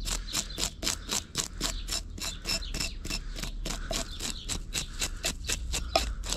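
A butter knife scraping the scales off a whole sea bass in quick, even strokes, about five or six a second, working up from the tail.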